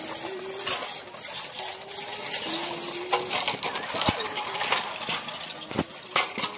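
Scattered light clicks and clatters of hard plastic: toy tractors being handled and pushed over sandy ground.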